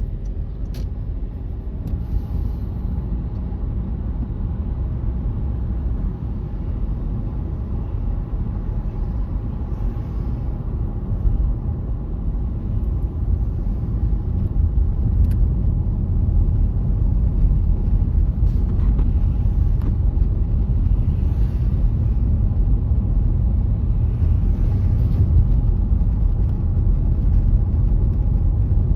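A car driving on a snowy road: a steady low rumble of engine and tyres, growing slightly louder partway through.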